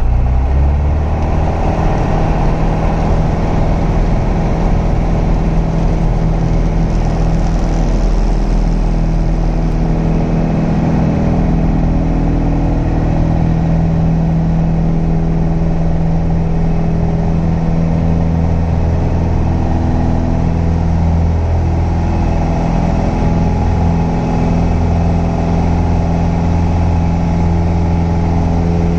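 Light aircraft's engine and propeller at full takeoff power, heard from inside the cockpit. The pitch rises briefly at the start as power comes up, then holds steady and loud through the takeoff roll and climb-out.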